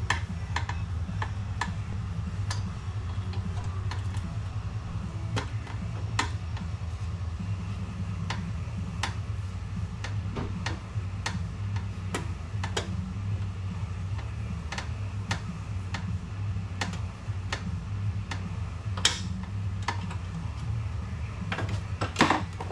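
Scattered sharp metallic clicks and ticks from hand tools working on the oil pan bolts under a 2004 Monte Carlo, coming irregularly about once or twice a second with a few louder knocks near the end, over a steady low hum.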